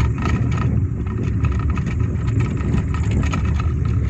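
Steady low rumble of a car driving along a rough, patched country road, heard from inside the cabin: engine and road noise.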